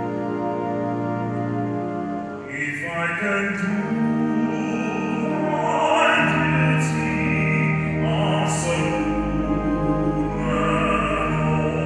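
A hymn sung with organ accompaniment. A held organ chord sounds for about two and a half seconds, then the voices come in over it.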